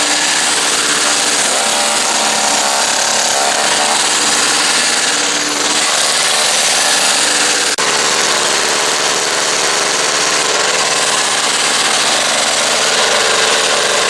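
A two-stroke single-stage snowblower engine (MTD 3.5 HP) running steadily and loudly. This is a test run after a new auger drive belt was fitted.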